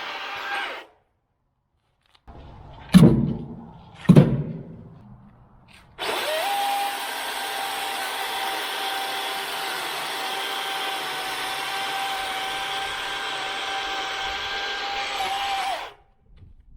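DeWalt 60V battery chainsaw running with a steady high whine, stopping about a second in. Two heavy thuds follow, a little over a second apart. Then the saw spins up quickly to a steady high whine, holds it for about ten seconds and stops abruptly near the end.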